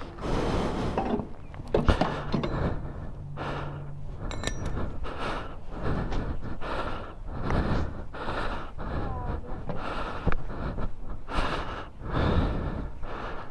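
A man breathing hard and fast from exertion, about one breath a second.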